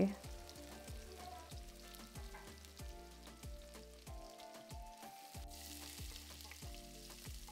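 Faint sizzling of keema curry cooking in a cast-iron pot, with light clicks and scrapes of a wooden spatula stirring it, under soft background music.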